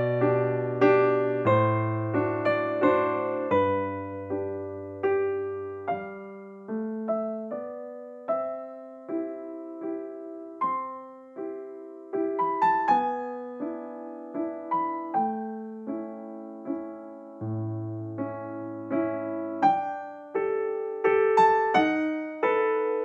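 Background piano music: gentle notes struck one after another and fading away, over held low notes.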